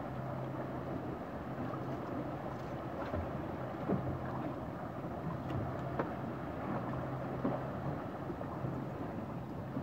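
A boat's engine humming steadily at low revs under wind and water noise, with a few light knocks along the way.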